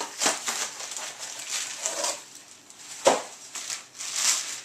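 Plastic packaging crinkling and rustling as parts are handled, with scattered small clicks and one sharp click about three seconds in.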